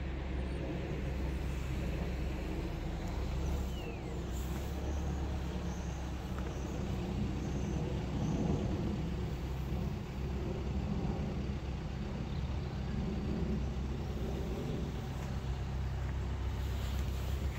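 Steady low rumble of road vehicles.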